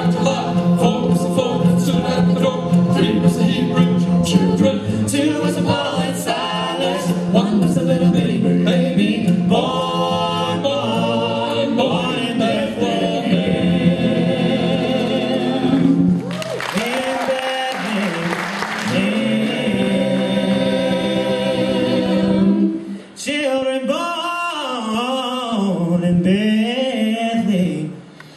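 A bluegrass ensemble singing a gospel song in group harmony, the voices carrying most of the sound. About seventeen seconds in, a burst of hiss-like noise lasts a couple of seconds over the singing.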